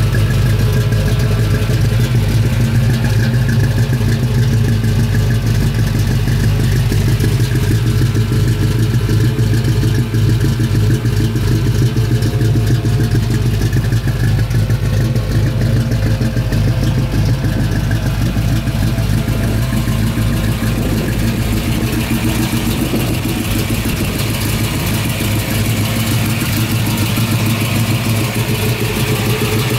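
Ford Boss 302 small-block V8 idling steadily through its dual exhaust.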